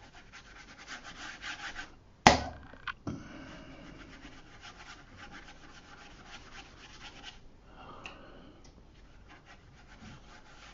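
A large number 20 watercolour brush brushed over textured watercolour paper, wetting the sky area with water: a soft, scratchy rubbing in repeated strokes. A sharp knock about two seconds in is the loudest sound, with a smaller one just after.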